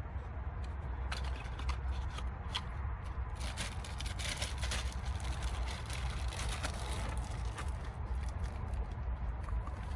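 Hand work on plastic parts and wiring during an ignition switch replacement: scattered small clicks and rustling scrapes, busiest in the middle, over a steady low hum.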